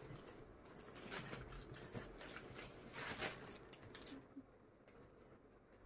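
Cotton bedsheet fabric rustling faintly as it is unfolded and handled, a string of soft rustles and small flaps for about three seconds, then quieter near the end.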